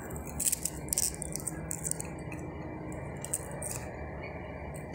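Small crisp clicks and crackles of raw onion slices being pushed apart into rings by fingers over a glass plate, over a faint steady low hum.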